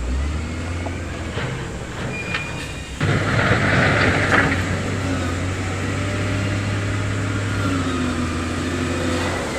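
Heavy diesel engine of construction equipment running steadily. It grows louder about three seconds in, with a second or so of rushing noise over it.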